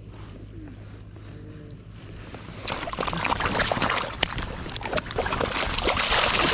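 Water splashing and sloshing in the river shallows while a wild coho salmon is released by hand. A quiet stretch gives way to many quick, irregular splashes that begin about two and a half seconds in and keep on.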